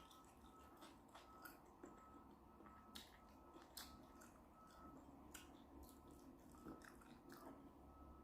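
Faint close-up chewing and biting of shrimp boil food, heard as irregular small clicks and smacks from the mouth over a low steady hum.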